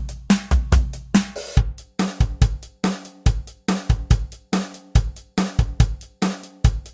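Programmed drum-pedal beat playing a full kit pattern of kick, snare, hi-hat and cymbal hits at a steady tempo, with a change in the pattern about a second and a half in.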